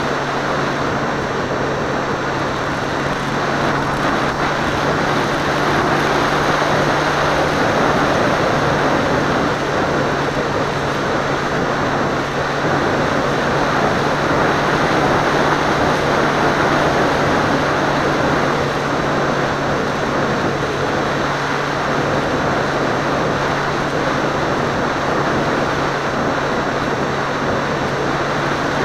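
Seawind seaplane in flight, its engine and propeller running steadily at an unchanging pitch, heard through a camera mounted on the plane.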